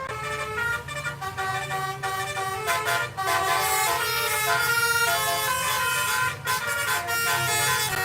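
Bus telolet horn, a multi-trumpet air horn, playing a tune of notes that change every fraction of a second, over a steady low engine hum.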